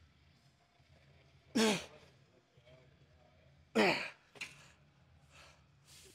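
A man's two loud, forceful exhales about two seconds apart, each with a voiced sound falling in pitch, followed by a few fainter breaths.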